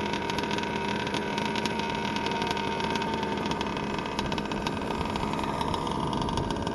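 Small two-stroke gas engine of a Losi 5T 1/5-scale RC truck running with a steady, even buzz.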